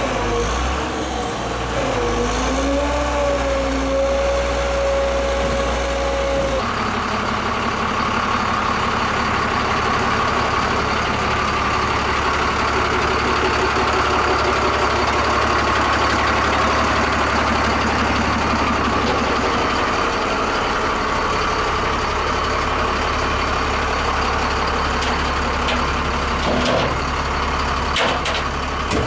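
Flatbed tow truck's diesel engine idling steadily. Over the first seconds a wavering whine rises and holds, then cuts off sharply about six and a half seconds in. A few sharp clicks come near the end.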